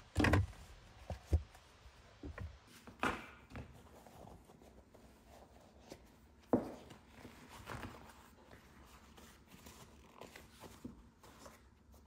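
Hands handling car gear-lever parts: plastic trim knocking and clicking, with soft rustling of a leather gear boot. A few sharp knocks stand out, the loudest right at the start.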